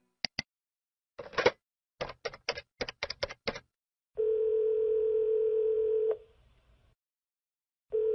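Telephone call being placed: a couple of handset clicks, then about eight quick keypad presses dialing a number. A steady ringback tone follows, ringing for about two seconds, and a second ring starts near the end.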